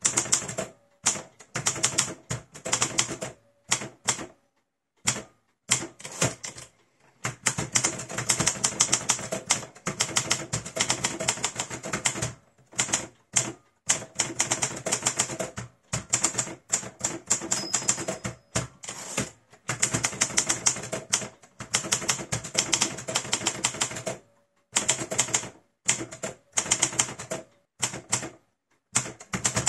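1948 Hermes 2000 manual portable typewriter being typed on: rapid runs of typebar strikes in spurts, with short pauses between them.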